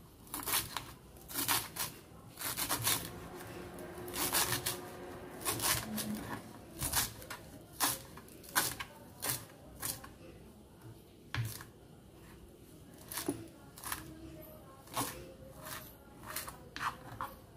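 Kitchen knife slicing fresh coriander on a wooden cutting board: crisp cutting strokes at an uneven pace, about one or two a second.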